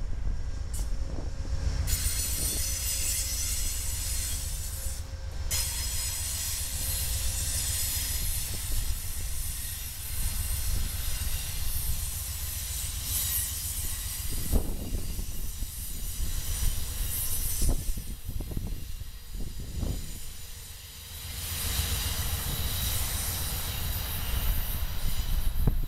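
Amtrak Superliner passenger cars rolling slowly past behind a GE P42DC diesel locomotive, the wheels giving a high, hissing squeal over a low rumble.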